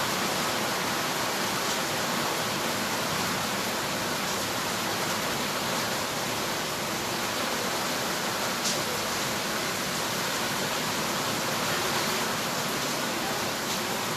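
Steady, even hiss with one faint click about nine seconds in.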